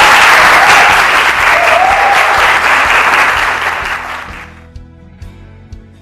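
Audience applauding loudly, dying away about four and a half seconds in, over background music with a plucked guitar that carries on alone.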